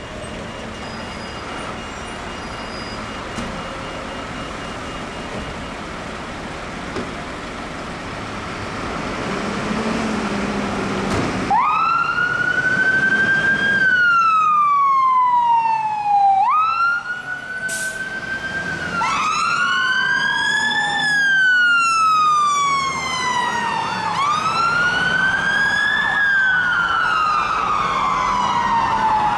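Volvo fire engine's engine running as it pulls out of the station. About eleven seconds in, its wail siren starts: each cycle rises quickly, then falls slowly, repeating every two and a half to three seconds.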